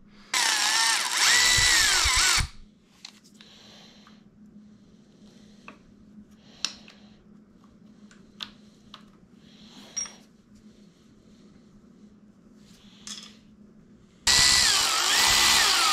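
Milwaukee cordless ratchet running in two spells of about two seconds each, near the start and near the end, its motor whine rising and falling as it spins bolts on the engine's throttle control lever assembly. In between come a few faint clicks of small metal parts being handled.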